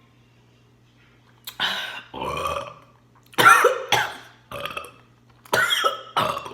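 A woman burping loudly again and again, about six burps in quick succession starting about a second and a half in, the loudest near the middle. The burps are gas from the carbonated Pepsi she is chugging coming back up.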